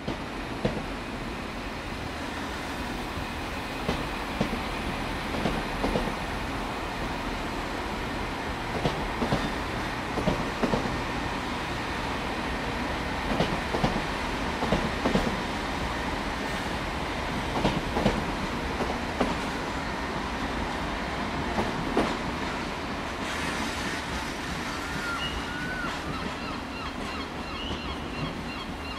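Irish Rail 22000 Class diesel railcar approaching slowly over station pointwork, its wheels clacking irregularly over rail joints and crossings above a steady running rumble. Thin wheel squeals come in near the end.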